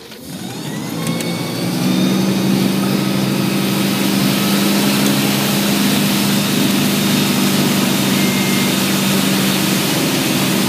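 Tow boat's inboard engine throttling up hard to pull a rider up from the water, its pitch rising over the first two seconds, then running steadily at speed with a loud even hum. A rushing noise of churning water and wind runs under it.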